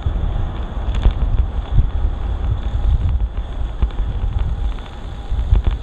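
Wind buffeting the microphone of a camera on a moving bicycle, a gusty low rumble with scattered small rattles and clicks.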